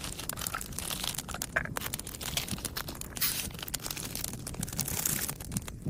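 Plastic instant-noodle packaging crinkling and tearing as it is handled and opened: a dense run of small crackles with brief louder rustles.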